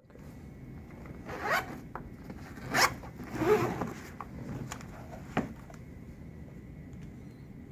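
Zipper of a defibrillator's soft carry case being unzipped in a few rasping pulls, followed by a single click about five seconds in as the unit is handled.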